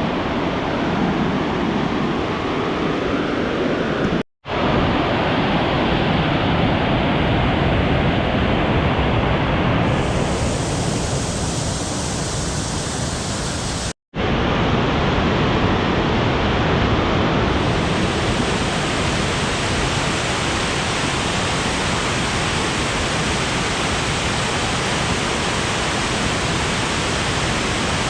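Waterfall swollen with spring snowmelt, a loud steady rush of falling water. It cuts out abruptly twice, for a split second each time.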